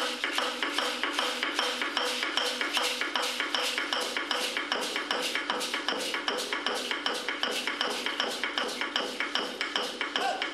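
Dancers' rattles clicking in a fast, steady beat, about four to five sharp clicks a second, with a faint ringing behind them.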